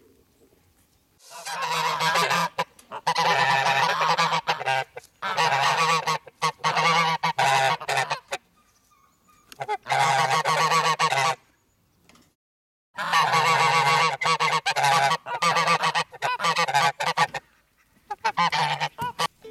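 Domestic white geese honking loudly in long bouts of rapid, repeated calls, starting about a second in and broken by a few short pauses.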